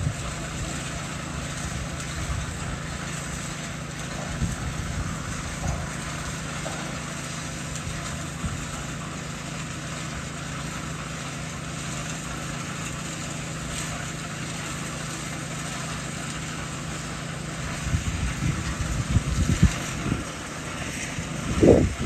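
A small engine running steadily with an even low hum. In the last few seconds, irregular low rumbles come in over it.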